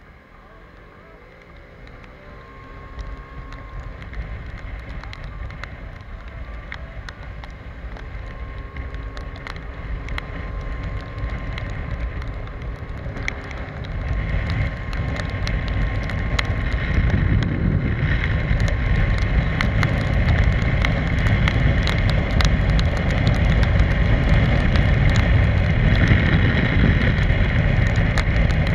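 Wind rushing over the microphone of a Piaggio X Evo 125 scooter riding on a wet road, growing steadily louder as it picks up speed. A faint whine sits under it in the first half.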